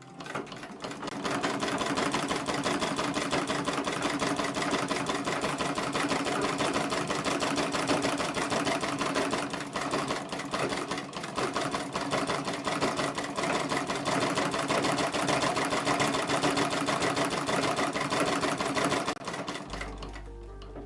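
A 1911 New Home Improved Home Companion treadle sewing machine stitching a seam through cotton fabric: a rapid, even clatter of the mechanism that gets up to speed in the first second or so and stops near the end.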